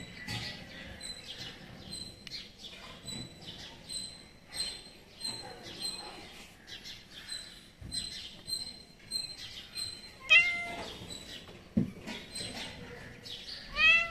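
A domestic cat meows twice, two short meows about three and a half seconds apart, the second near the end. A faint high chirp repeats about twice a second underneath.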